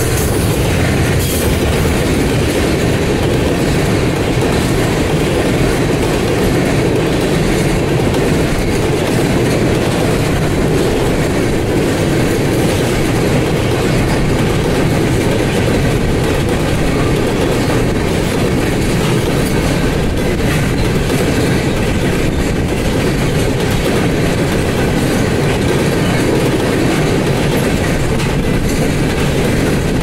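Freight train flatcars rolling past: a steady rumble of steel wheels on rail with clickety-clack over the rail joints.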